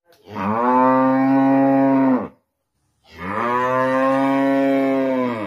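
A cow mooing twice, each moo a long steady call of about two seconds that rises briefly at the start and drops off at the end, with a short gap between them.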